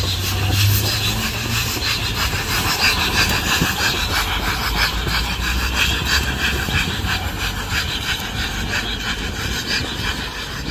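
A train running close by on the track: a steady rush of wheel-on-rail noise with many quick clicks, and a low engine hum in the first couple of seconds.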